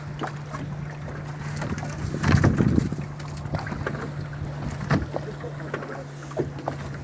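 Small fishing boat's motor running with a steady low hum, with wind buffeting the microphone, loudest about two and a half seconds in, and a few scattered knocks.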